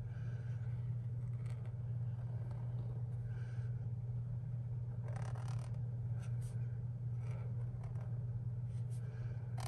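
Faint swishing strokes of a brush-tip marker drawn across thin journal paper, over a steady low hum.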